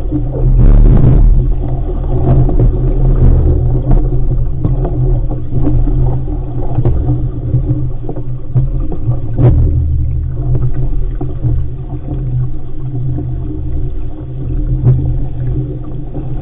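Sailing dinghy underway: a heavy, uneven low rumble of wind buffeting the microphone over water rushing along the hull, with occasional short splashes and knocks.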